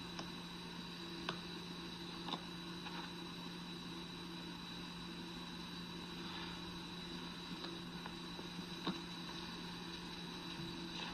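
Steady electrical hum and hiss from an old video recording, with a few faint clicks about a second, two seconds and nine seconds in.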